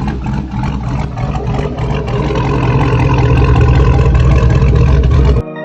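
2013 Chevy Tahoe's V8 engine running, now starting again after a new starter cured its no-crank, no-start fault; it grows louder about two seconds in and cuts off abruptly near the end.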